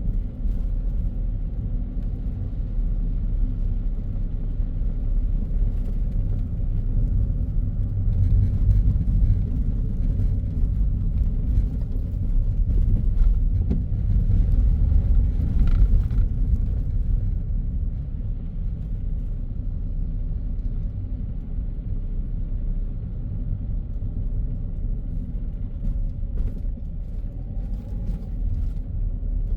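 Car driving on a city road: a steady low rumble of engine and tyres, swelling a little about a quarter of the way in and easing off past the middle.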